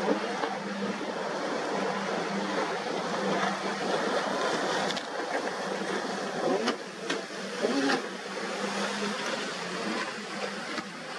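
Motorboat engine drone over a steady rushing noise, with a few sharp clicks between about five and eight seconds in.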